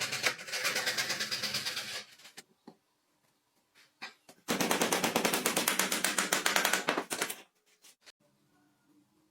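Rapid, evenly spaced mechanical hammering, about ten strikes a second, in two bursts of about two and three seconds, with a few faint clicks between them.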